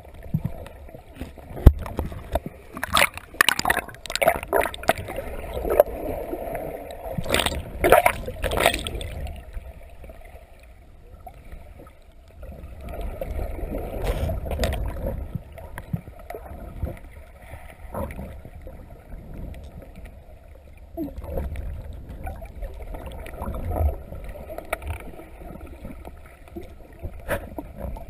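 Muffled underwater water noise around a submerged camera: a low rumble and gurgling, with irregular clicks and knocks as the camera is moved about, busiest in the first third.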